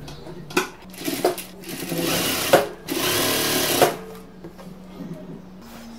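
Industrial sewing machine stitching in two short runs of about a second each, with sharp clicks as it starts and stops, sewing down the folded edge of a fabric strip.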